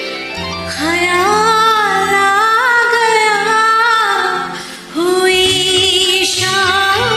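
A woman singing a Hindi film song over a karaoke backing track, in two long, wavering phrases with a brief break about two-thirds of the way through.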